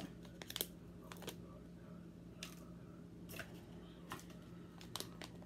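Plastic specimen collection bag being handled, giving a handful of short, scattered crinkles over a faint steady hum.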